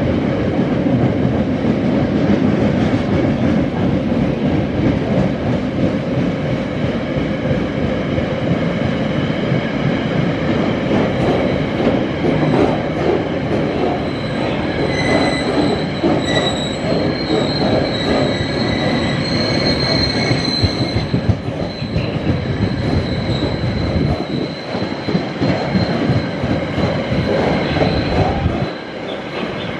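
Freight train's loaded box wagons rolling past at speed, wheels rumbling and clattering on the track. A high-pitched wheel squeal rings out over the rumble for several seconds about halfway through. The low rumble thins out near the end.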